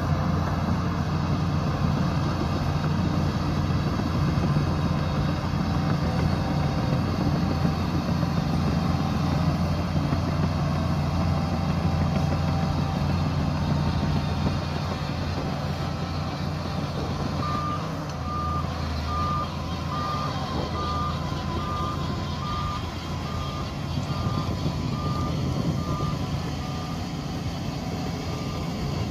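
Shantui DH17C2 bulldozer's diesel engine running steadily under load. More than halfway through, a reversing alarm starts beeping in a steady rhythm, about one and a half beeps a second.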